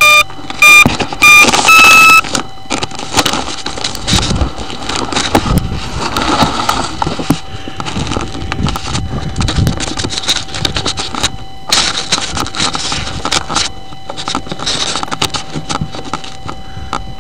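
Four loud electronic beeps: three short ones at one pitch, then a longer, slightly higher one. They are followed by irregular rustling, scraping and knocks as the foam RC model and its onboard camera are handled and carried through grass. A faint steady electronic whine runs underneath.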